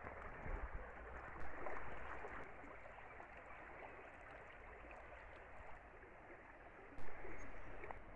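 Shallow river rippling over a gravel and rock bed, a steady rushing babble, with two brief knocks, the louder one near the end.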